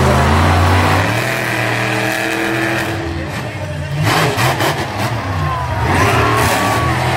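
Monster truck engines running loud and revving, with uneven bursts of revs in the second half.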